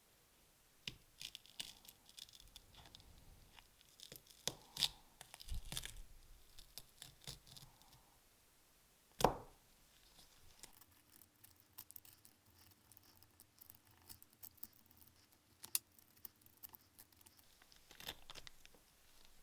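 Small-scale hand work on a model car: scattered light clicks and scratchy scraping, with one sharp knock about nine seconds in.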